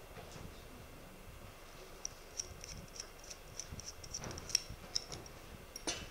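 A run of short, high-pitched ticks at irregular spacing, several a second, starting about two seconds in, with a sharper click near the end.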